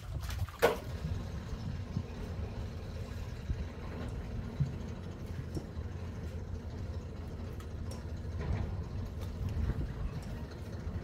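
An engine running steadily with a low rumble, with one sharp knock about half a second in.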